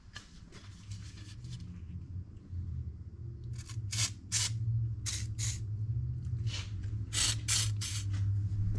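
WD-40 aerosol can sprayed in short hissing spurts, about eight of them in three quick groups, over a steady low hum.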